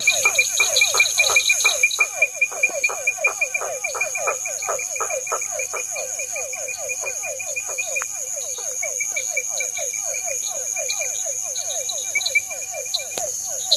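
Night pond chorus of small frogs and insects: a fast series of short repeated frog notes over a steady high insect trill, with pulsed chirping from crickets.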